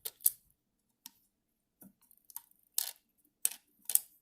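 A run of small, sharp plastic clicks and taps at irregular intervals, about nine in all, from the parts of an Nvidia Shield TV 2017 game controller being handled and pressed into place during reassembly.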